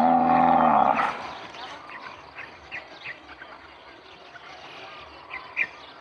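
A bovine in the field gives one long low moo lasting about a second. After it, scattered short bird chirps sound over a quiet rural background.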